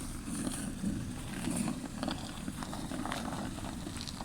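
Car engine idling with a steady low rumble, its idle speed still settling just after a drive.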